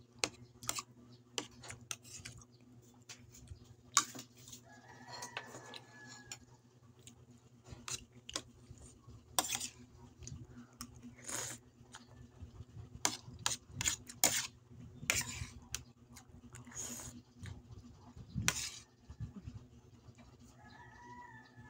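Spoon and fork clicking against a plate during eating, many short clinks at an uneven pace. A rooster crows in the background about five seconds in, and again near the end.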